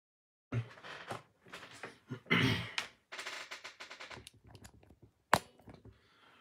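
Handling noise: a run of irregular clicks and rattles with a dense patch of rapid clicking, and a single sharp knock about five seconds in.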